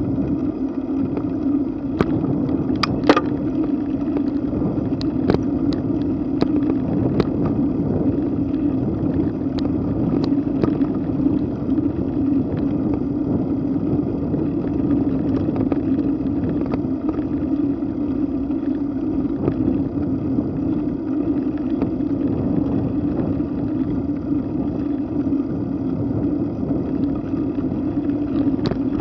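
Steady wind and rolling noise on a bicycle-mounted camera riding at about 9 mph, with a run of sharp clicks and rattles between about two and ten seconds in.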